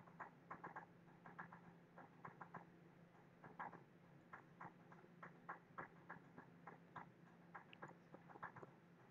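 Faint computer mouse clicks, short and irregular, a few a second and sometimes in quick pairs, over a low steady hum.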